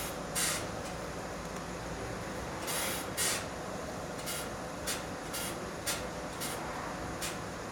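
Renault Fluence steering or front suspension creaking as the steering wheel is turned: a series of short, scraping creaks over the steady hum of the idling engine. The owner likens the creak to rubber rubbing on rubber; it comes mainly when turning right.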